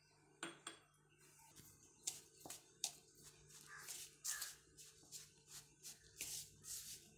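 Metal spoon stirring and scraping crumbly crushed chocolate-biscuit mix in a plastic bowl: a run of irregular light clicks and scrapes, several a second.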